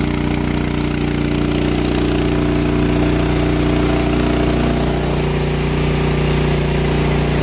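Kohler engine on a portable generator, running at a steady, even speed.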